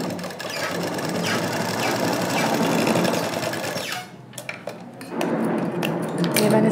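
Black domestic sewing machine stitching steadily. It stops about four seconds in and starts again about a second later.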